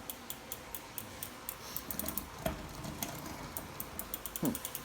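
Bicycle rear hub's freewheel ticking as the rear wheel spins, a rapid even run of sharp clicks whose rate slows a little in the middle and picks up again.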